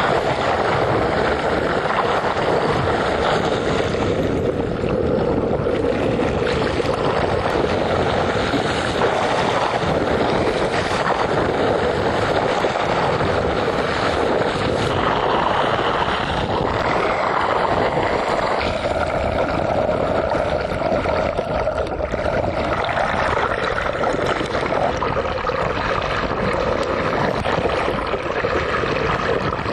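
Boat motor running steadily under rushing water noise, its pitch rising a little past halfway.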